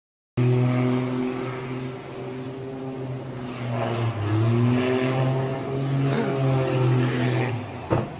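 Small aircraft's engine droning, its pitch wavering and bending as the plane dives, ending with one sharp impact near the end as it crashes into the sea.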